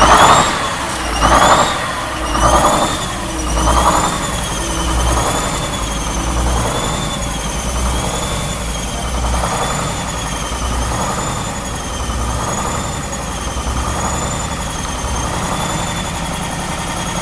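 Budd RDC 9167's #2 Detroit Diesel engine running just after a cold start, at about freezing after three days unused. It swells and falls about once a second at first, then settles into a steady idle, with a high whine wavering up and down in pitch over the engine noise.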